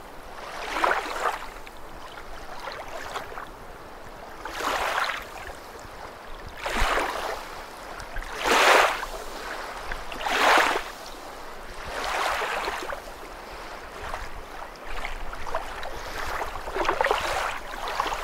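Kayak paddle strokes: the blade swishing into and through the water about once every two seconds, in a steady rhythm.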